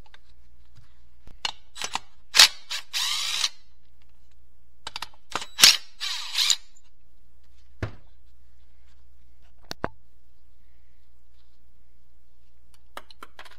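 Hand tools and steel parts clinking and knocking against a manual transmission case during disassembly, with two sharp clanks and short scraping rasps in the first seven seconds, then a few lone clicks.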